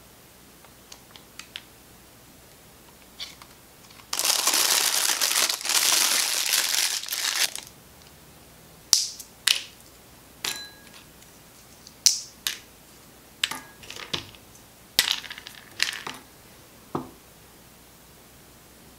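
Plastic piping bag crinkling for about three and a half seconds as it is handled, then a dozen or so sharp cracks and clicks spread over about eight seconds as pistachio shells are cracked open by hand and dropped onto a tray.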